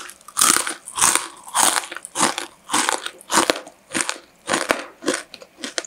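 Crispy fried kue bawang (savoury onion dough sticks) being chewed, a steady run of dry crunches at about two to three a second.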